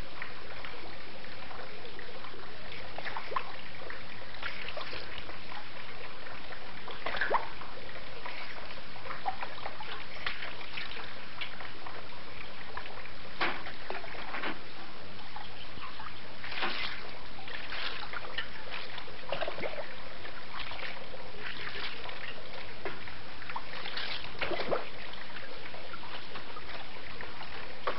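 Water splashing and trickling as a person washes, with small irregular splashes over a steady hiss.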